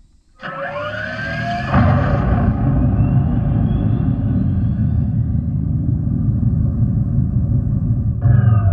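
Fratzonic Chambered Exhaust of a 2024 Dodge Charger Daytona Scat Pack, the electric car's synthetic exhaust sound, switching on with rising tones about half a second in and settling into a deep, steady rumble. Near the end a louder burst with falling tones comes as the start button is pressed again to switch it off.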